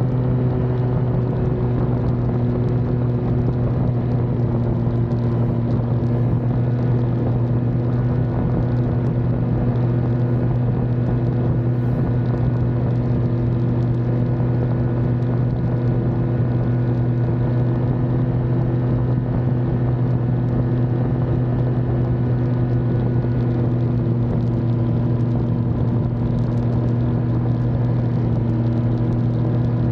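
Snowmobile engine running steadily at cruising speed on a packed trail, a constant low hum whose pitch holds nearly even throughout.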